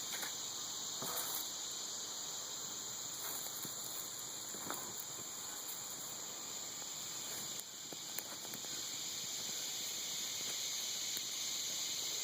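Steady, high-pitched insect chorus, with a few faint scattered knocks and rustles.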